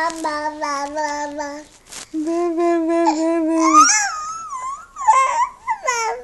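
Toddler babbling: a string of short syllables on one steady pitch, then a long held note, then high-pitched sliding squeals from about four seconds in.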